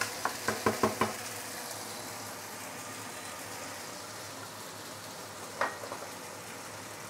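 Sliced pork sizzling steadily in a hot wok with dried chili and ginger. There are a few quick knocks of the wooden spatula against the wok in the first second, and one more knock about five and a half seconds in.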